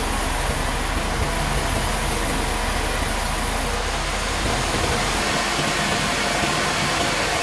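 Sawmill machinery running: a steady, dense mechanical noise with a low hum underneath, changing in character about four and five seconds in.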